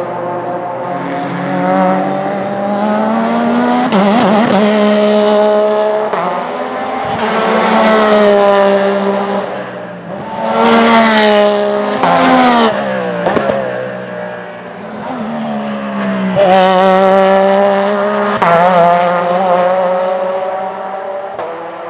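Porsche 911 RSR (991) race car's mid-mounted 4-litre flat-six running hard at high revs. Its pitch climbs and then drops sharply several times as it shifts gears and passes by.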